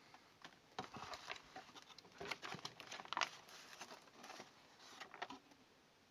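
Packaging being handled, an irregular run of crinkling and rustling with small clicks and knocks for about five seconds.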